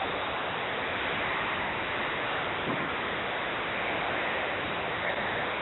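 A steady, even hiss with no clear tones, and a faint knock about two and a half seconds in.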